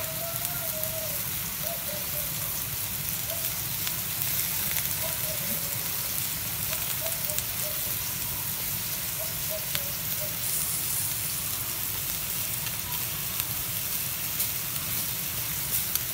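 Crab pieces, garlic and sausage sizzling steadily in a hot stainless steel wok as they sauté, with a few faint ticks now and then.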